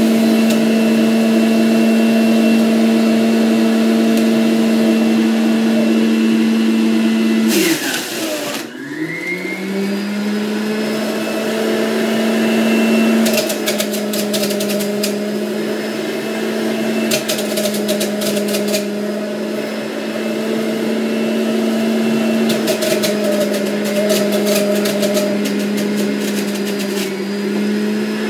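Electric centrifugal fruit juicer running with a steady motor hum. About eight seconds in there is a sharp crunch as fruit goes down the chute, and the motor's pitch drops steeply under the load, then climbs back slowly; later come several stretches of crackly grinding as more fruit is shredded.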